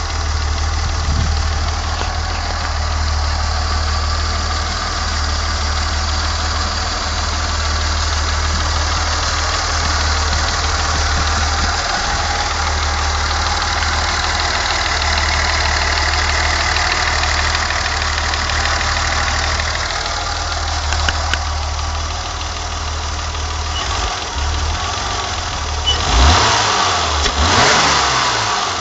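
BMW E28 520i's 2.0-litre straight-six engine idling steadily. Near the end it is revved twice, the pitch rising and falling with each blip.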